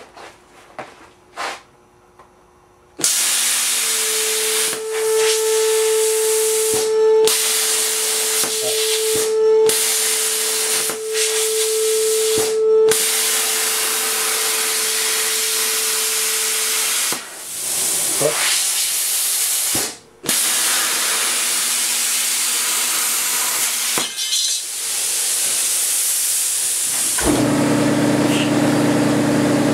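Hand-held plasma cutter cutting steel plate: a loud, steady hiss of the arc and air jet, stopping briefly several times as the cut is paused and restarted. About 27 s in, a low, steady motor hum starts up.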